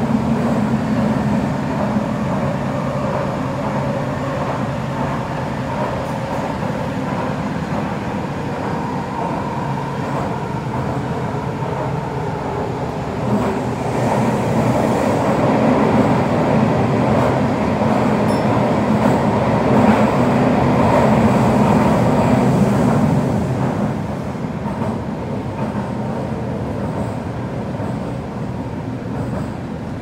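Running noise heard inside a Toei Oedo Line 12-000 series linear-motor subway car in the tunnel: a steady rumble of the train under way. It grows louder for several seconds past the middle, then eases off about three-quarters of the way through as the train slows into a station.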